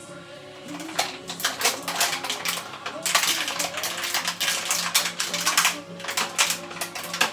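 Rapid, irregular clicking and clattering of kitchen items being handled, starting about a second in, over a gospel song playing in the background.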